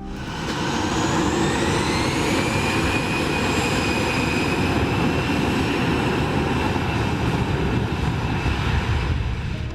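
Aircraft engine running: a loud rushing noise with a high whine that rises over the first couple of seconds, then holds steady.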